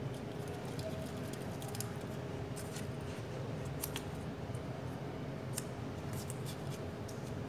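Enamelled copper coil wire rustling and ticking as it is pushed into the insulated slots of an electric motor stator: scattered short scratchy ticks over a steady low hum.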